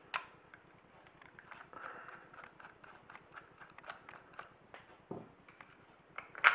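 A screwdriver turning out a terminal screw in a service fuse connection block: a run of faint small clicks and scrapes, closest together from about one and a half to four and a half seconds in, then a sharper click at the end.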